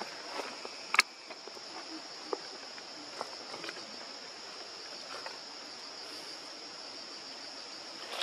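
Steady high-pitched drone of insects, with scattered small ticks and rustles and one sharp click about a second in.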